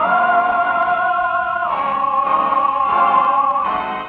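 Closing music of an old radio broadcast: long held chords with a wavering vibrato, moving to a new chord about a second and a half in, then fading out near the end. The sound is thin, with no treble above about 4 kHz.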